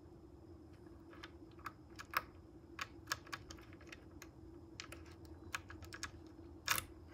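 Irregular small plastic and metal clicks as a lock and key are fitted by hand into a Rockymounts Tomahawk roof bike rack, with a louder click about two seconds in and another near the end.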